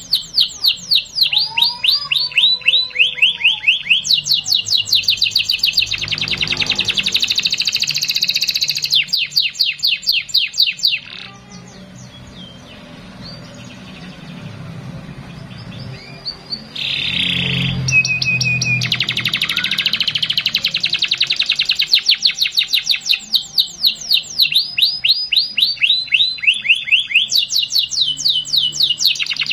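Canary singing a long song of fast rolling trills and rapidly repeated chirps, breaking off for about five seconds partway through before starting up again.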